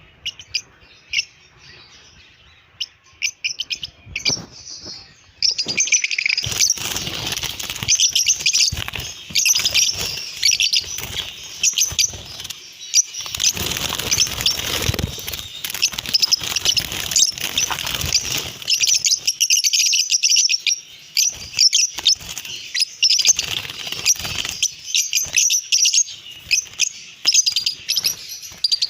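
A flock of lovebirds chattering, with rapid high chirps that turn much denser and louder about five seconds in.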